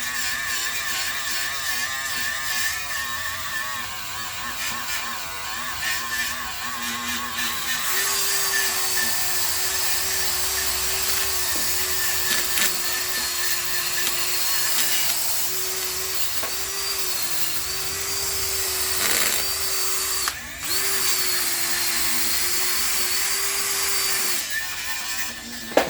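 Power tool running steadily under load, stripping rust and old paint from a truck's rear axle housing. Its pitch sags a little as it bites, and it stops for a moment about twenty seconds in.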